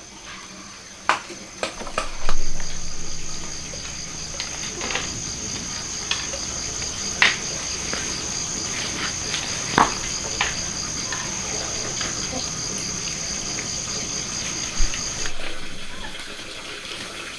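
Steady high-pitched insect trill with a pulsing second tone beneath it, starting about two seconds in and stopping a couple of seconds before the end. Scattered light clicks and knocks are heard throughout.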